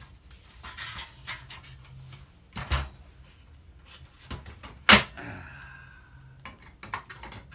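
Tools and metal appliance parts clicking, tapping and scraping as the appliance is worked apart by hand, with a louder knock about two and a half seconds in and the sharpest knock about five seconds in.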